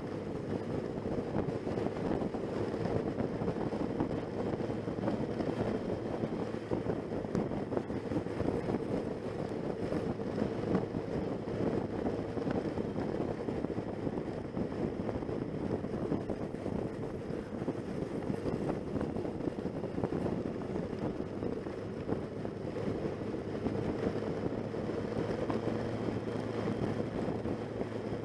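Motorcycle engine running steadily at cruising speed on the move, with wind rushing over the microphone.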